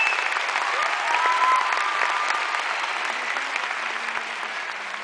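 Theatre audience applauding, a dense patter of many hands clapping that slowly dies down.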